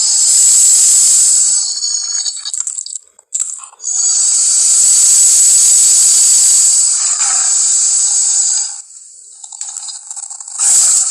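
Movie monster sound effect: a loud, high screeching hiss lasting about three seconds, then after a short break a second, longer one of about five seconds.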